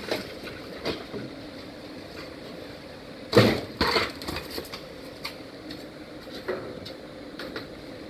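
Scattered knocks and clicks from washer parts being handled, with one loud clatter about three and a half seconds in.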